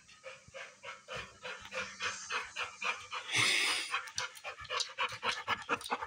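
Dog panting rapidly, about three breaths a second, with a brief louder rush of noise about three and a half seconds in.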